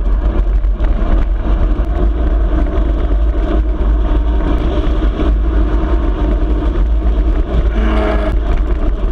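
Steady wind rumble buffeting the handlebar-mounted camera's microphone as a mountain bike rides at speed on asphalt, with tyre noise from the road. A short tone rises out of the rumble about eight seconds in.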